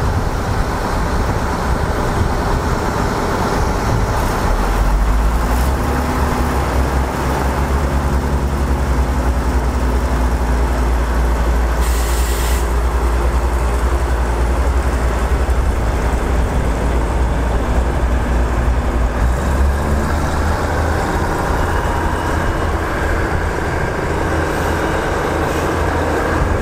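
Four-car diesel railcar set pulling out of the station, its underfloor diesel engines running under power as the cars roll past with a deep, steady rumble. A short hiss comes about twelve seconds in.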